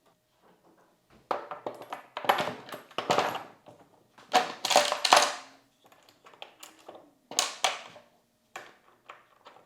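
Metal caster hardware and tools clinking and rattling as cart casters are handled and fitted, in several bursts of clatter with short pauses between.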